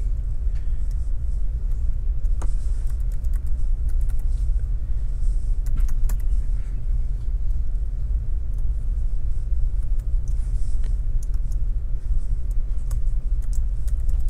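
Scattered clicks of computer keyboard keys being typed, over a loud, steady low rumble.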